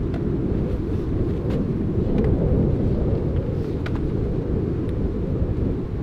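Wind buffeting the microphone outdoors: a steady, rough low rumble, with a few faint clicks on top.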